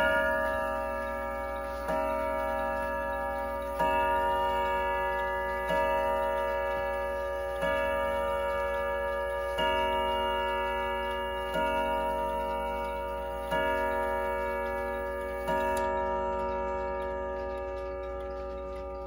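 Howard Miller Jennison triple-chime wall clock (model 612-221) striking the hour on its chime rods: nine rich metallic strokes about two seconds apart, each ringing on and fading before the next, part of the eleven o'clock hour count. The pendulum ticks faintly underneath.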